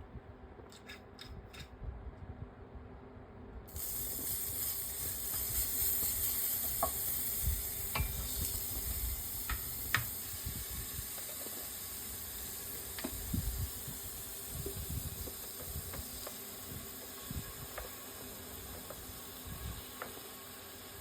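Stir-fry sizzling in a hot frying pan, starting suddenly about four seconds in and holding steady, with scattered light clicks of a utensil stirring. A few quick taps come just before the sizzle starts.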